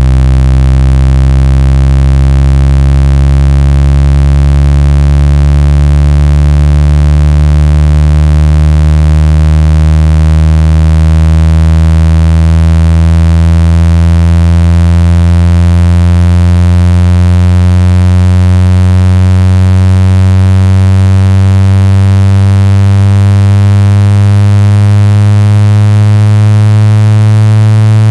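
Loud, low synthetic buzzing tone with many overtones, its pitch slowly and steadily rising: a speaker-cleaning tone played to vibrate a speaker's membrane and shake water and dust out of the grill.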